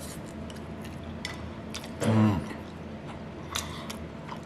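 A man eating: chewing with scattered light clicks and taps, and a short low 'mm' hum of his voice about two seconds in.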